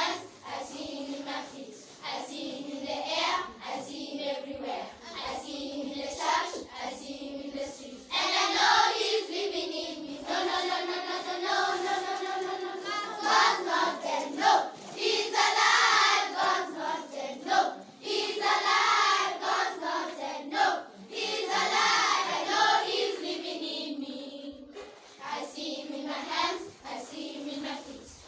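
A group of children singing together, with hand claps. The singing gets louder about eight seconds in and eases off again a few seconds before the end.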